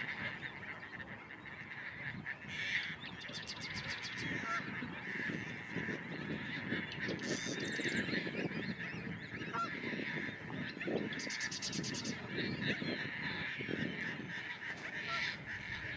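Birds calling in the background: honking calls and several short buzzy rattles at intervals, over steady background noise.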